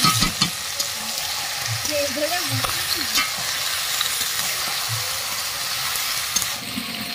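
Raw chicken pieces sizzling in hot oil in a metal kadai while a metal spatula stirs them, with a few sharp scrapes and knocks of the spatula against the pan. The chicken has just gone into the fried onion, ginger and tomato masala to be browned. The sizzle drops off about a second before the end.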